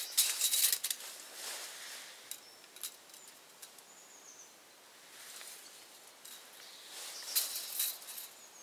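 Rustling and scraping bursts with a few light clicks, from a tape measure being pulled out and handled. A faint bird chirp about four seconds in.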